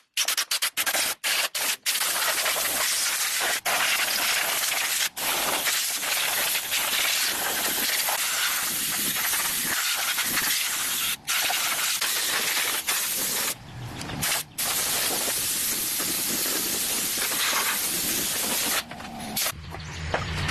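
A pressurised spray hissing steadily, cut off and restarted many times, with a rapid series of short stops at the beginning. A low hum comes in near the end.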